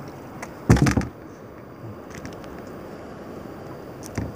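Steady wind and sea noise on the microphone, with a loud thump about a second in and a lighter knock near the end.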